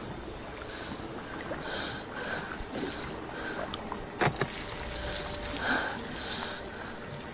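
Faint sounds of a rowed boat on calm water: soft sounds recurring about every half second, with one sharp click about four seconds in.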